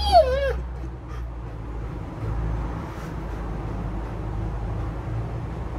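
A dog huffing and puffing, blowing air out through its nose, over a steady low hum. A short wavering whine comes right at the start.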